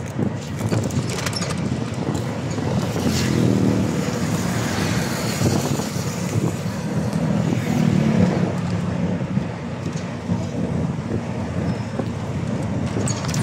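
Engine and road noise of a moving open-sided vehicle heard from on board, running steadily and swelling louder around four and eight seconds in, with wind on the microphone.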